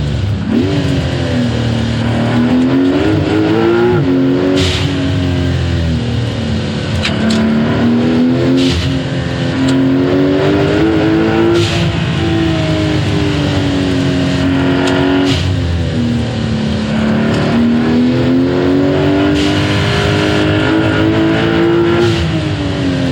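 Porsche 911 Turbo S (992.2) turbocharged flat-six with an aftermarket turboback exhaust, being driven hard: the engine note climbs and falls again and again as it accelerates and lifts off. A few brief sharp hissing bursts cut across it.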